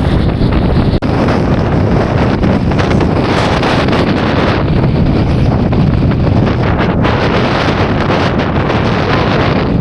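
Strong mountain wind blasting across the microphone: a loud, continuous rush of wind noise, heaviest in the low end, with a brief dip about a second in.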